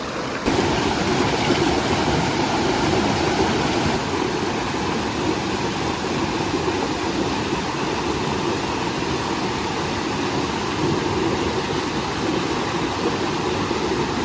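Steady rush of a river's flowing water, a little louder from about half a second in.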